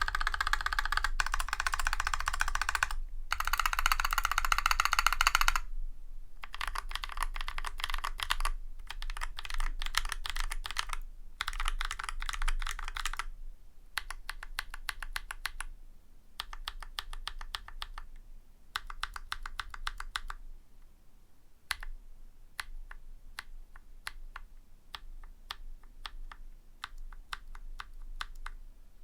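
Typing on a Drop CTRL High Profile mechanical keyboard with lubed YOK Holy Panda tactile switches and GMK keycaps. The first few seconds are dense, rapid runs of keystrokes, followed by slower groups of separate key presses.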